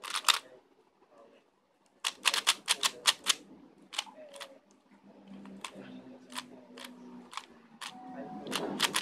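Plastic clicking of a stickerless MoFang JiaoShi MF3RS 3x3 speedcube being turned by hand: a quick run of clicks about two seconds in, then scattered single turns.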